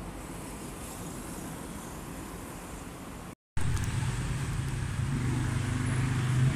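Street traffic: an even background noise, then after a brief break a louder stretch of motor traffic with a steady low engine hum, as a motor scooter passes.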